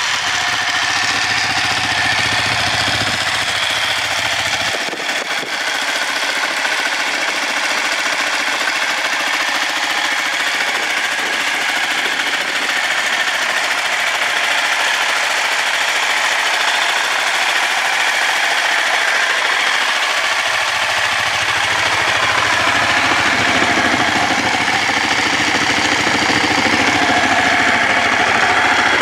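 Ducati 1199 Panigale S Tricolore's 1198 cc L-twin idling steadily through a carbon-fibre Termignoni exhaust, with the lumpy, uneven beat of a big V-twin at idle.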